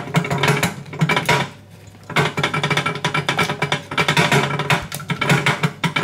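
Metal lock pick raking the wafers of a safe's wafer lock under a tension wrench: rapid, irregular metallic clicking and scraping, with a brief pause about a second and a half in.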